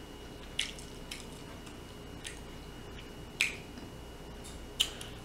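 A person swallowing a drink in gulps from a tumbler: about five short, wet swallowing clicks, unevenly spaced, over a faint steady high-pitched hum.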